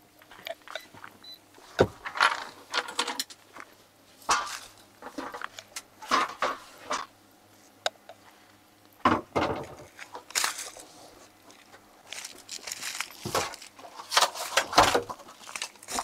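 Someone rummaging through a cupboard: irregular clattering, rattling and knocks as things are moved about.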